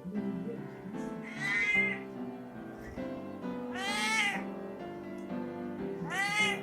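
Female cat in heat calling: three drawn-out meows that rise and fall, about a second and a half in, about four seconds in, and near the end, over background music.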